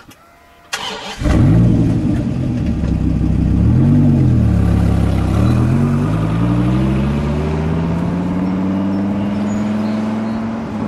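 Dodge Viper V10 engine starting up, catching about a second in, blipping its revs up and down, then pulling away with the pitch climbing steadily under acceleration.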